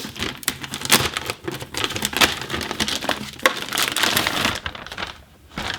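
Packaging being handled: dense crinkling and rustling with small clicks, dying down about four and a half seconds in.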